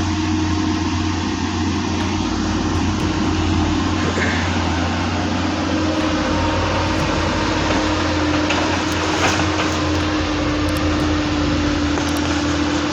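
Heavy excavator running steadily under work, its diesel engine and hydraulics giving a low hum with a steady mid-pitched whine over it.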